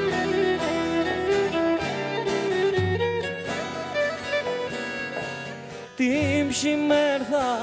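Instrumental break of a Pontic folk song: a Pontic lyra (kemenche) plays the bowed melody over acoustic guitar and frame drum. A male voice comes back in singing with vibrato about six seconds in.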